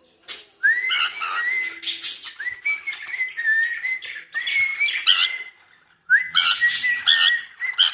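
Cockatiel chattering in two bouts with a short pause between, a steady whistled note with scratchy chatter over it, talking rather than singing.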